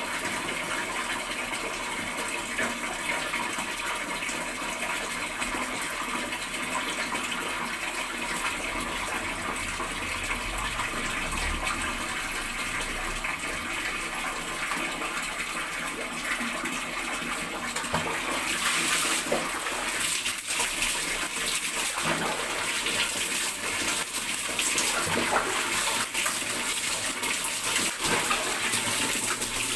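Steady running water while long hair is lathered with shampoo; about eighteen seconds in it turns to louder, uneven splashing as water runs over the lathered hair to rinse the shampoo out.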